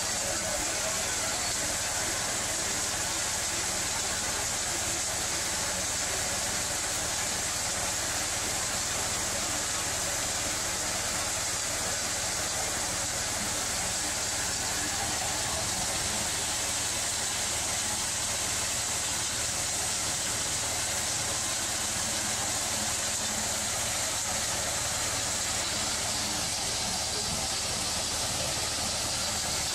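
24 by 16 heavy-duty hammer mill running steadily as shotgun shells are fed into it, a constant mechanical noise with a strong high hiss.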